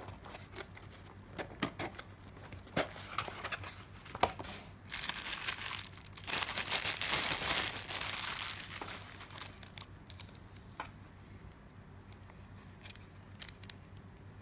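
Cardboard box being opened with a few light taps and scrapes, then a clear plastic bag crinkling loudly for several seconds as it is pulled open and off a knife in a Kydex sheath, fading near the end.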